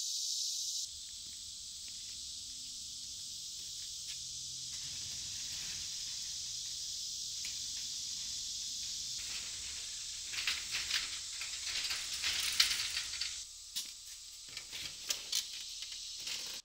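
Steady high-pitched insect chorus. In the second half, irregular light clicks and knocks.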